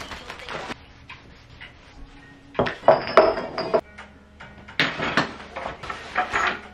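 Household items being gathered and put away: plastic wrapping crinkling and objects clattering in three short bursts, with a brief ringing clink in the middle one.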